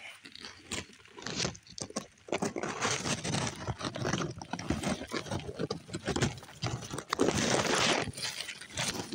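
Leaves and stems of dense berry bushes rustling and brushing against the phone as it is pushed through the foliage, with crackling handling noise. The rustling comes in irregular rushes and is loudest and most continuous for about a second near the end.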